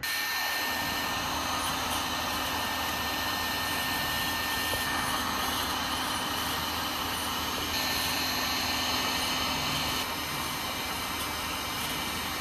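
Electric heat gun running, a steady rush of blown air with a faint constant whine.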